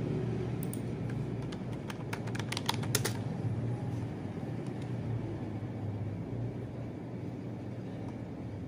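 A quick run of sharp keyboard clicks, a dozen or so, in the first three seconds, over a steady low hum.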